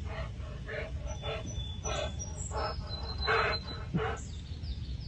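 A series of short animal calls, roughly every half second, with faint high bird chirps over them.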